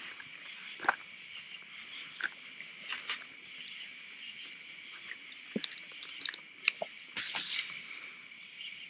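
Steady chorus of night insects chirping. Scattered light clicks and a short rustle a little after seven seconds come from food being handled on a plate close by.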